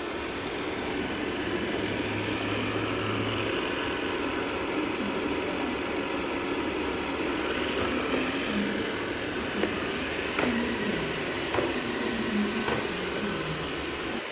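Roborock S5 Max robot vacuum running a combined vacuuming and mopping pass: a steady mechanical hum, with a few light clicks in the second half.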